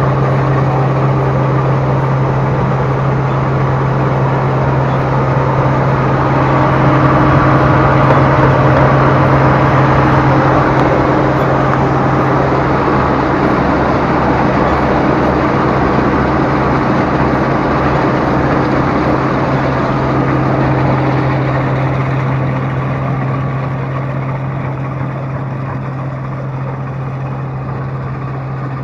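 Rice harvesting machine running steadily: a constant low engine hum under broad machinery noise. It gets a little louder about a quarter of the way in and eases off slightly near the end.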